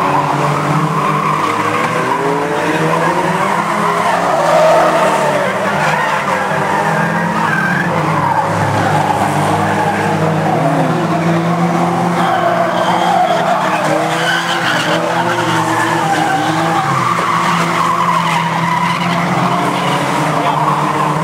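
A field of banger-racing stock cars running at once, their engines revving up and down as they race around the oval, many engine notes overlapping and rising and falling in pitch.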